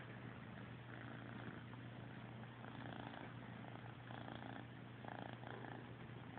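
Kitten purring faintly and steadily while being stroked.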